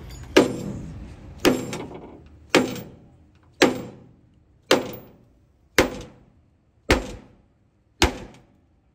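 Hammer blows riveting a truck chassis frame: eight heavy strikes, one about every second, each followed by a short metallic ring.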